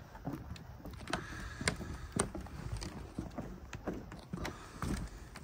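Footsteps on old, spongy wooden floorboards: uneven knocks with short creaks of the boards under the weight.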